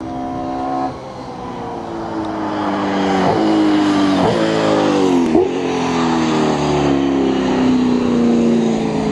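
Holden Commodore V8 Supercar's V8 racing engine at full throttle, upshifting through the gears with the note climbing and then breaking sharply at each change, the shifts about a second apart near the middle; the car passes and its pitch then sinks slowly as it pulls away.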